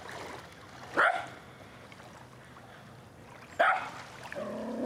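Cairn terrier barking twice, single sharp barks about two and a half seconds apart; he is barking at his own echo.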